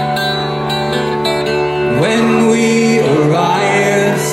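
Live band playing the intro of a folk-rock song: acoustic guitar over steady held tones, with a gliding, wavering melodic line coming in about two seconds in.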